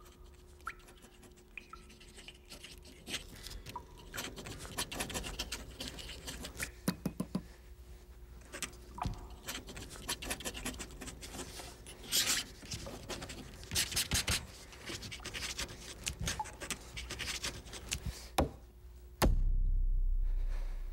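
Repeated scraping and rasping strokes with scattered sharp clicks, some strokes louder than others. Near the end a loud low rumble starts suddenly and fades away.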